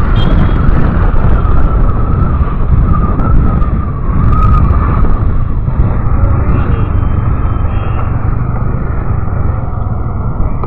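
Motorcycle on the move: engine and road noise with wind rushing over the microphone, easing off near the end as the bike slows.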